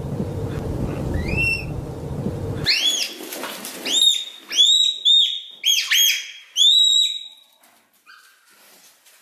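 Red panda's high, bird-like whistled chirps that rise and drop. One chirp comes over a low rumbling background that cuts off suddenly; then a quick run of chirps follows, fading near the end.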